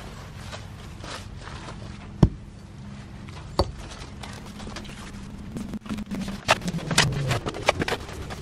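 Footsteps on gravel and two sharp knocks as a steel shovel is set down against hard ground, then a quick run of crunching, scraping strokes as the shovel digs into hard gravelly soil beside a chicken run.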